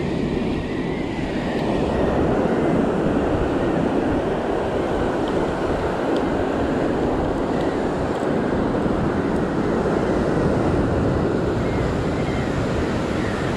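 Ocean surf breaking and washing over a rocky shore, a steady rushing noise, with wind buffeting the microphone.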